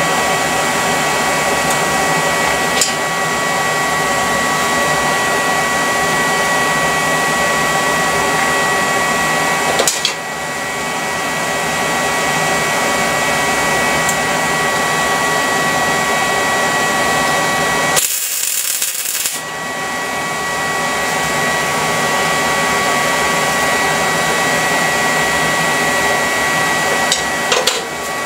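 A steady whirring of a motor-driven fan or blower with a constant high whine. About two-thirds of the way through, a loud hiss lasts a second or so.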